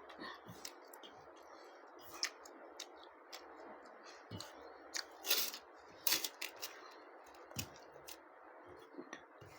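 A person chewing and eating close to the microphone: scattered wet mouth clicks and smacks, loudest about five and six seconds in, over a steady background noise.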